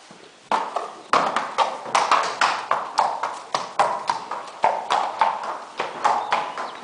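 Hooves of a horse walking on a concrete stable floor: a steady clip-clop of sharp hoof strikes that starts about half a second in.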